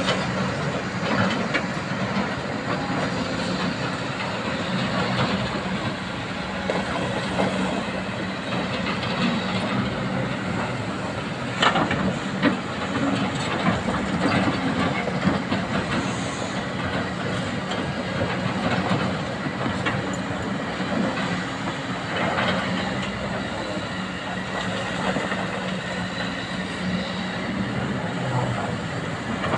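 Excavator's diesel engine running steadily, with scattered metallic clanks and knocks from the machine at work, the sharpest about halfway through.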